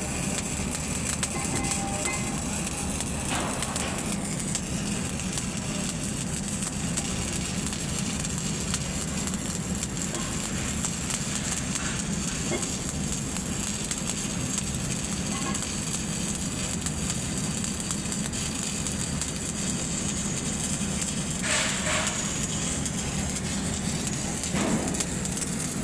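Electric arc welding on a pipe: a steady crackling sizzle from the arc over a constant low hum, with a few brief louder rasps.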